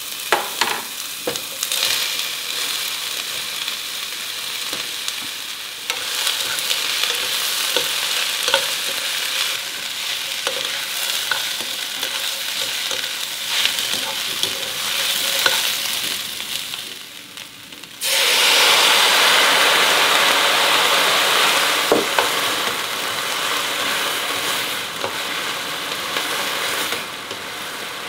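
Food sizzling in a hot frying pan while being stirred, with light clicks of the utensil against the pan. The sizzle dips briefly about 16 seconds in, then comes back suddenly louder and brighter about 18 seconds in.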